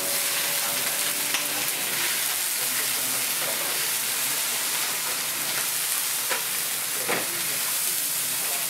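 Shucked oysters and chopped spring onions frying in hot oil in a wide black iron pan: a steady sizzle with a few light clicks, about a second in and again near the end.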